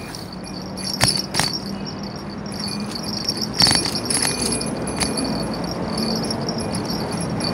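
Bicycle rattling and jingling as it rides over pavement, with a few sharp knocks from bumps about a second in and again later, over steady tyre and wind noise.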